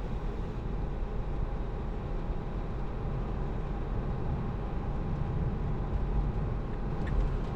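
Steady road and tyre noise of a Tesla Model 3 driving in traffic, a low rumble with no engine note.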